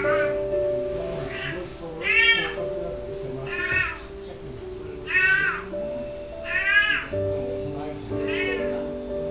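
Cat in heat calling over and over: about seven drawn-out meows, each rising then falling in pitch, spaced roughly a second or so apart. Background music with long held notes plays under the calls.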